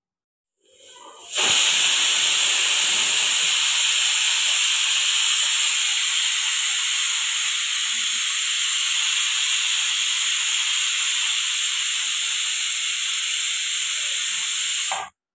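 Stovetop pressure cooker venting steam from under its pressure weight: a loud, steady hiss that comes in about a second and a half in and cuts off abruptly near the end. The cooker has come up to full pressure.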